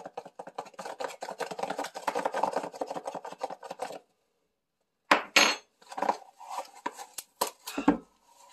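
Spoon scraping and tapping rapidly in a container of baking soda as a heaping spoonful is scooped and levelled, stopping abruptly about four seconds in. After a second's gap come a few separate clinks and knocks of spoon against containers.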